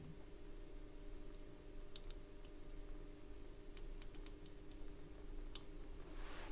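Faint steady hum with about ten light, sharp clicks scattered from about two seconds in to near the end, from small tools being handled on a repair bench.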